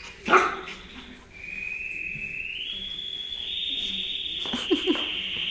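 Yorkshire terrier puppy giving a long, high-pitched whine that steps up in pitch partway through, after a single thump near the start.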